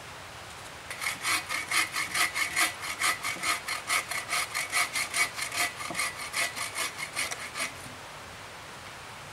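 Bow saw cutting through a log, in rapid, even back-and-forth strokes that start about a second in and stop sharply near the end.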